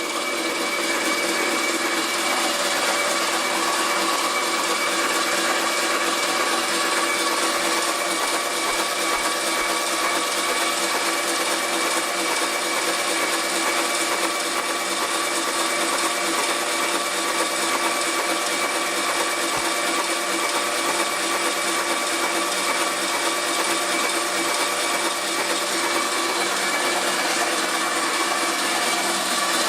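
Steady whine of an electric motor spinning the VW Beetle engine over without spark plugs to build oil pressure, holding one even speed throughout.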